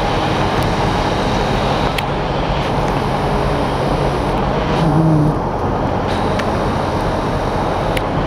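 GWR Class 158 diesel multiple unit moving along the platform, a steady diesel rumble with a few sharp clicks and a brief low hum about five seconds in.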